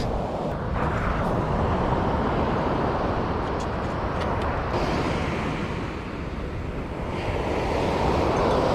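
Waves washing onto a sandy beach, the surf swelling about a second in and again near the end, with wind rumbling on the microphone.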